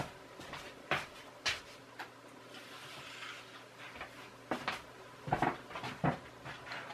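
A few light, scattered clicks and knocks, six or so spread over several seconds, over a faint steady background.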